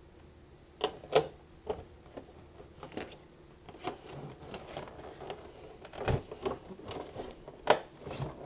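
Irregular taps, clicks and rubbing as a makeup kit and its contents are handled, with a few sharper knocks scattered through.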